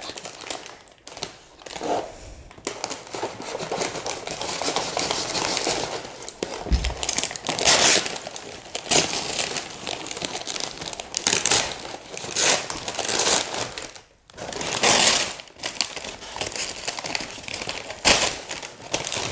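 Packing paper crinkling and rustling as it is handled and pulled out of a cardboard box, with louder short bursts of crumpling every second or two.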